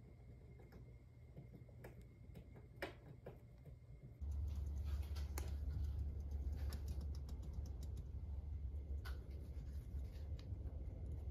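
Golden hamster gnawing a pistachio: a run of small, crisp clicks and crunches. Scattered sharp ticks come first, and a low steady hum comes in about four seconds in.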